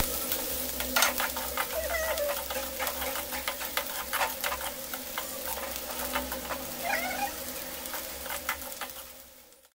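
Sliced onions and green chillies sizzling in oil in an iron kadai, with a metal spatula clicking and scraping against the pan; the loudest knock comes about a second in. A short wavering call sounds twice in the background, about two and seven seconds in, and everything fades out just before the end.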